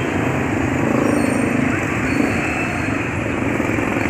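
Steady street traffic noise at a busy intersection, with vehicle engines running.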